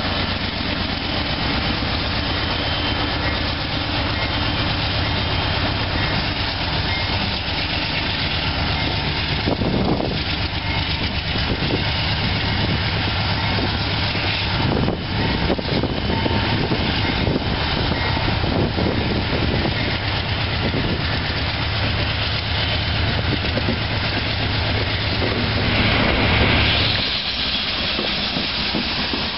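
Union Pacific freight train passing close by: a low diesel locomotive rumble under the steady rolling noise of gondola cars, with occasional clunks. A brief louder high-pitched noise comes near the end, and the low rumble drops away just after.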